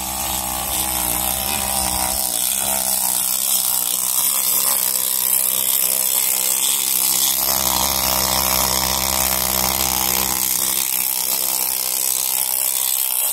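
Pneumatic needle scaler running steadily against a rusty steel axle housing, its needles hammering off flaky scale rust.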